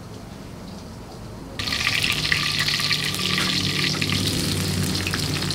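Chopped chillies, shallots and garlic dropped into hot oil in a wok, sizzling and crackling strongly, starting suddenly about a second and a half in.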